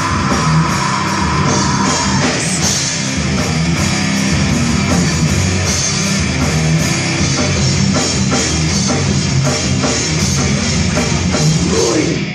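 Hard rock band playing live: distorted electric guitars, bass and a drum kit with crashing cymbals. The whole band stops at once right at the end, closing the song.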